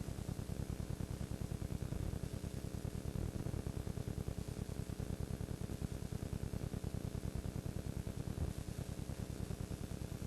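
Steady static hiss with a fast, even low pulsing and no other sound: recording noise rather than any scene sound.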